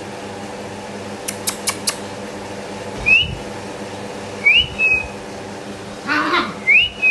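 A person whistles three short calls, each rising and then held briefly, to call German shepherd puppies. They come after a quick run of four clicks, and a brief voice-like sound comes just before the last whistle.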